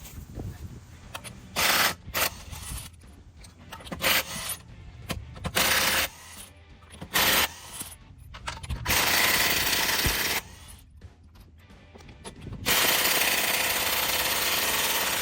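Impact wrench run in several short bursts, then a longer run of about a second and a half and one of about three seconds near the end, loosening and spinning off nuts.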